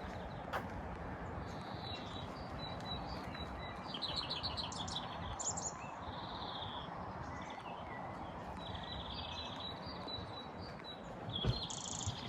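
Forest birds singing and calling, repeated high notes and short trills, over a steady rushing background noise, with a soft low thump near the end.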